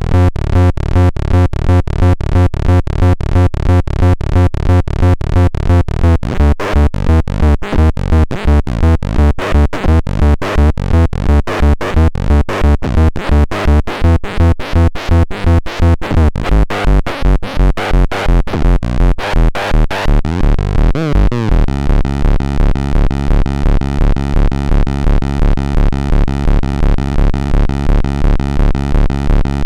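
Techno Station TS1 synthesizer playing a fast, pulsing electronic loop with a steady beat. About two-thirds of the way in, a short falling sweep leads into a different repeating pattern.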